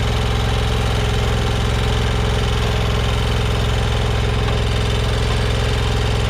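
Commercial walk-behind lawn mower engine running at a steady speed while the mower drives forward.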